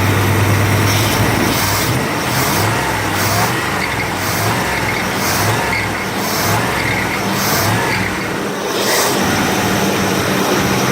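1965 Pontiac LeMans engine running steadily at idle after a hard start, relatively smoke-free, with a regular pulse about once a second.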